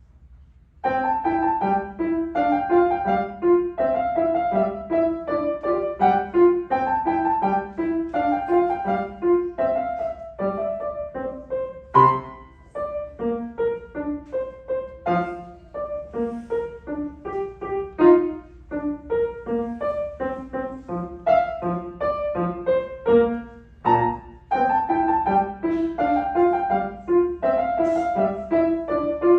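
Piano playing a classical teaching piece, starting about a second in after a pause: a quick, steady run of repeated note patterns, with a few single strongly accented notes along the way.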